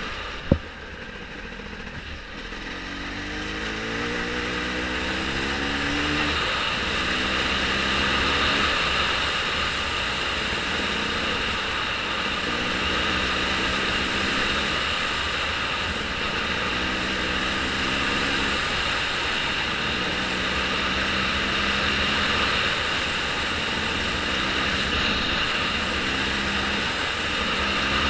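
A vehicle engine running, its pitch climbing and dropping back again and again, over a steady rush of wind or road noise. One sharp click about half a second in.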